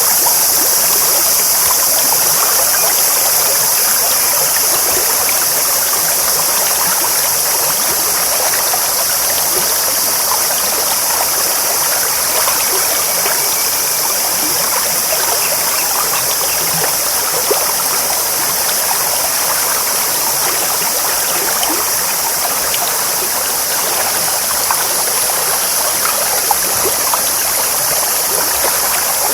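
Clear stream babbling steadily over stones, a continuous rush of water with small splashes and gurgles.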